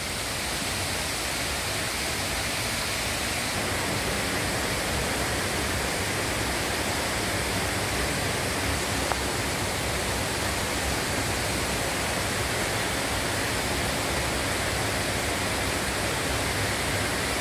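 Steady rushing of a waterfall: an even, unbroken noise that grows a little louder over the first few seconds, then holds.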